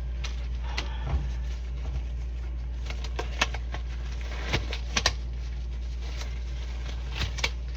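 Refrigerator running with a steady low hum, with scattered light clicks and knocks as things in and around it are handled.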